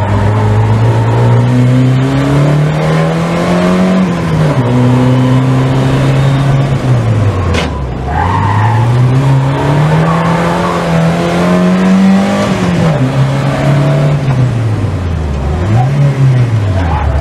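A Volvo's engine heard from inside the cabin while the car is driven hard on a circuit. The revs climb steadily twice, each time falling sharply, with steadier stretches between, and they dip low near the middle and again near the end. A single sharp click comes about halfway through.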